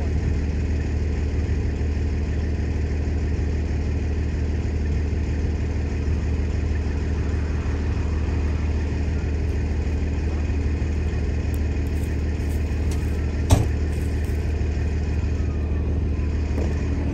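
Heavy tow truck's engine running steadily at an even speed, a constant low drone, with one sharp click about thirteen seconds in.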